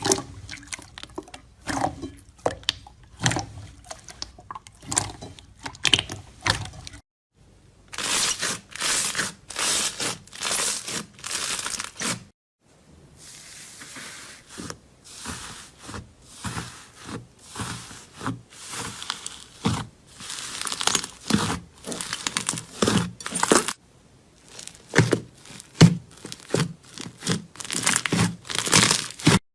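Slime being squeezed, stretched and poked by hand, giving rapid, irregular runs of short snaps and pops. The sound drops out briefly three times, between clips.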